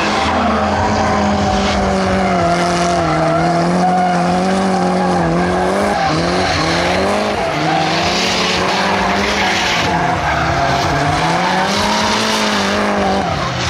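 Nissan 200SX drift car's engine held at high revs through a long drift, the revs dipping and climbing back twice, over the steady screech and hiss of spinning, skidding rear tyres.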